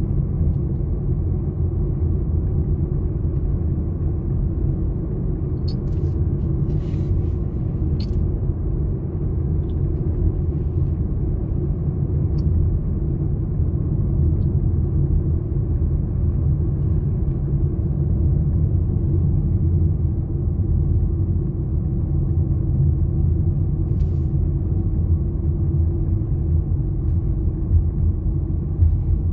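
Steady low rumble of a car driving along a paved road, engine and tyre noise, with a few faint clicks.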